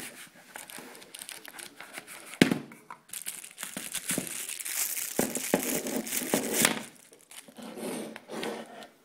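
Plastic packaging being handled and opened, crinkling in dense spells that are heaviest through the middle, with one sharp click about two and a half seconds in.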